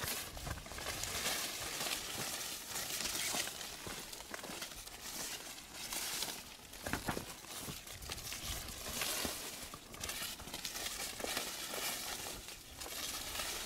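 Footsteps crunching on a trail, with irregular crunches every second or two over a steady outdoor hiss.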